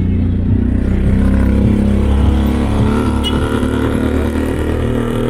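Motor vehicle engine running steadily with a deep drone and road noise, as in moving street traffic.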